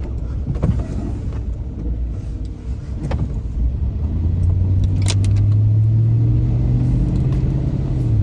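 Car driving, heard from inside the cabin: low engine and road rumble, with a steady engine hum that comes up about halfway through and rises slightly in pitch. A few sharp clicks or knocks sound over it.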